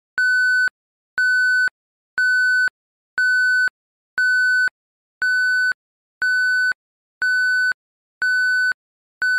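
Electronic countdown-timer beeps: one steady, high beep of about half a second, repeated once a second, ten times, all at the same pitch.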